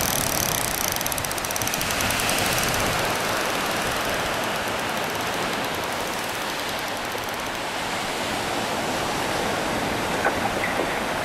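Surf washing on the beach with wind on the microphone: a steady rushing noise.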